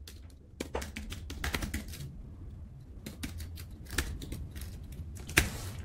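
Typing on a computer keyboard: irregular keystroke clicks in short runs, with a brief pause about two seconds in.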